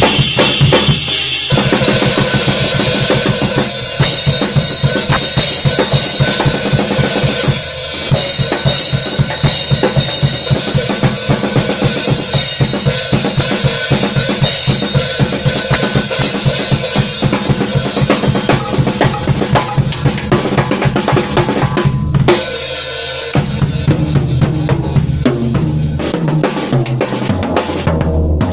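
Acoustic drum kit played as a fast solo: rapid snare and tom strokes with bass drum beats under a constant wash of cymbals. About 22 seconds in it briefly drops back, then carries on with heavier, lower drum strokes and less cymbal.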